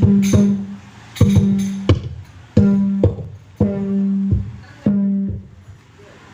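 Music played loud through a large PA sound system for a sound check. A low held note, each time starting with a sharp hit, is cut off again and again in short phrases about a second long.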